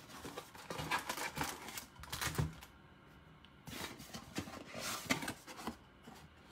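Trading card blaster box and its foil packs being handled and opened by hand: crinkling, clicking rustles in two spells with a short pause about halfway through.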